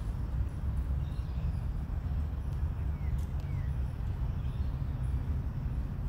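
Steady low outdoor background rumble, with two faint short bird chirps about three seconds in.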